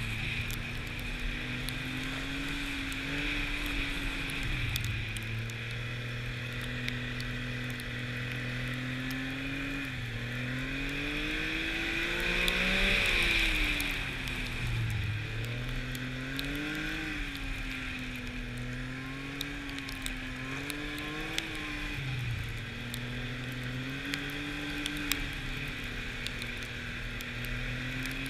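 Arctic Cat snowmobile's four-stroke engine running under way, its pitch wavering as the throttle is eased on and off; the revs climb to a loud peak about halfway through, then drop back. A steady hiss of track and wind runs under it, with scattered small clicks.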